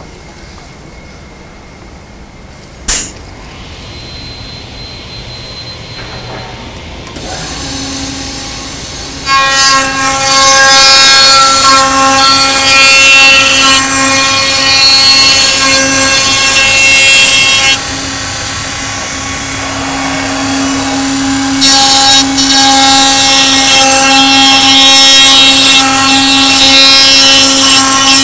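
KHC500 CNC dovetail mortising machine: after a sharp click, its spindle motor spins up to a steady whine, and from about nine seconds in the cutter mills into a wooden board, loud and whining. The cutting eases to the motor's whine for a few seconds past the middle, then comes back loud.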